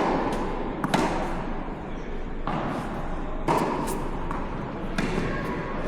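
Tennis balls struck by rackets during a rally: a few sharp pops about one to two and a half seconds apart, over steady court background noise.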